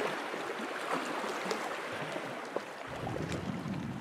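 Calm lake water lapping gently at a rocky shore, with light splashes and drips. A low rumble joins about three seconds in.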